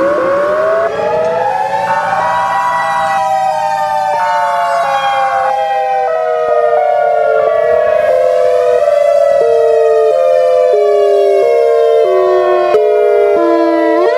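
Several warning sirens sounding at once, the tornado-siren wail of a mock emergency alert. One winds up in pitch at the start, tones rise and fall slowly, and from about halfway a tone steps down in pitch about every 0.7 seconds. A new wind-up begins near the end.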